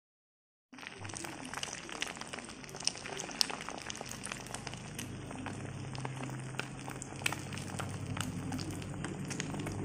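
Beaten egg sizzling and crackling in a hot nonstick frying pan, starting suddenly about a second in, with a low steady hum underneath.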